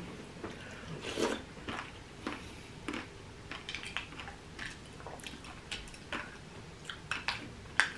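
Someone eating a bowl of berries in coconut water with a spoon: faint, irregular chewing crunches and small clicks, with an occasional light clink of the spoon against the bowl.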